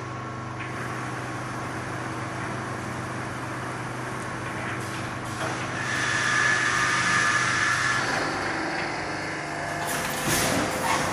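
Automatic fence panel welding and bending machine running: a steady low machine hum, joined by a higher whine for about two seconds in the middle as the mesh panel is moved along, and sharp clatter with hissing near the end.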